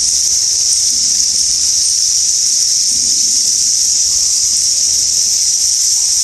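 Steady, shrill insect chorus: an unbroken high-pitched drone with no pulses or breaks.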